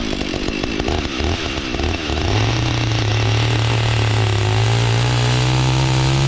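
Chainsaw engine running, uneven and fluctuating at first, then settling into a steady note from about two seconds in that creeps slowly higher in pitch.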